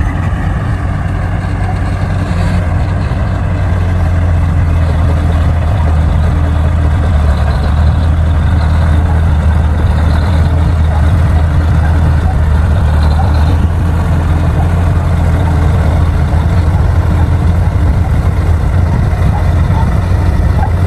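Bulldozer's diesel engine running steadily with a deep, constant hum.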